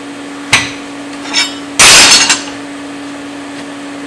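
Pieces of mild steel bar stock clanking against each other and the work surface as they are handled and laid out. There is a sharp knock, a lighter ringing clink a second later, then a louder clatter lasting about half a second, over a steady hum.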